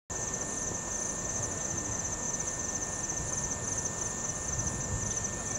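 Evening insect chorus: a steady high-pitched trill, with a second insect chirping above it in short pulses about twice a second.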